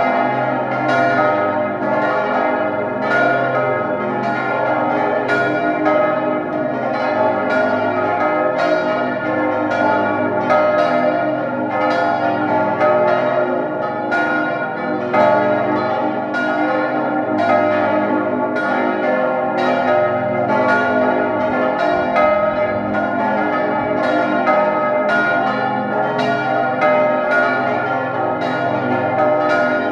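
The full peal (plenum) of a church's tower bells, most of them cast by Johann Hahn of Landshut, with the largest tuned to A-flat. All the bells swing and ring together, several strikes a second overlapping into a steady, continuous clangour.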